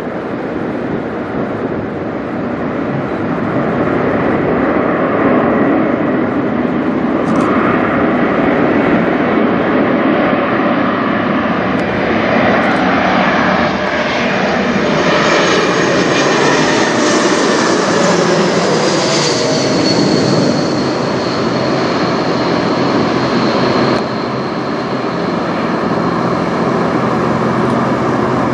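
Airbus A220-300 jet airliner flying low overhead, its turbofan engines making a steady, loud rushing noise with a high whine that drops in pitch as the jet passes, about two thirds of the way through.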